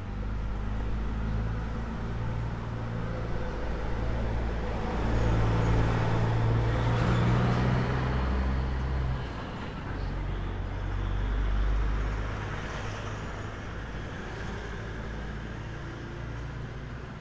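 Street traffic: vehicle engines running close by with a steady low hum, swelling as traffic passes about seven seconds in, then dropping away about nine seconds in and growing quieter near the end.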